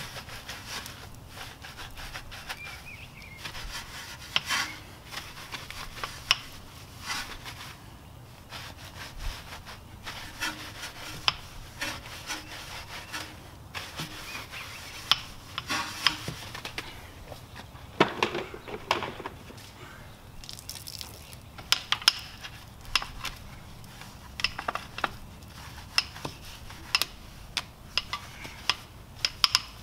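Small wheel-cleaning brush scrubbing the foam-soaped spokes and rim of a car wheel, in many short, irregular strokes.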